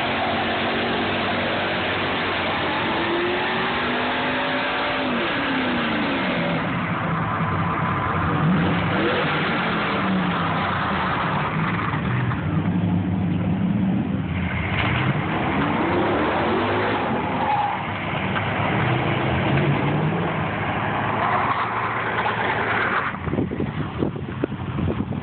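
Pickup truck doing a burnout: the engine revs up and down again and again while the spinning rear tyres squeal on the pavement.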